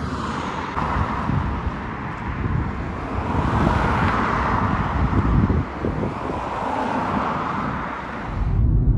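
Road traffic on a nearby dual carriageway, a steady rush of tyre and engine noise that swells as vehicles pass, loudest about four seconds in and again near the end.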